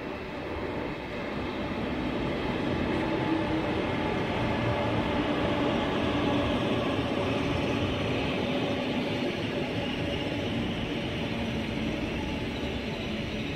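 SRT high-speed train, a ten-car KTX-Sancheon trainset, rolling slowly past: a steady rail rumble with a few steady tones over it, building over the first few seconds and then holding.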